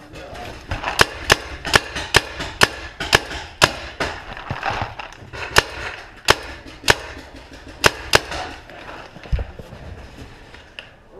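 Paintball markers firing: a string of sharp shots, about three a second for the first few seconds, then spaced out with gaps of half a second to a second.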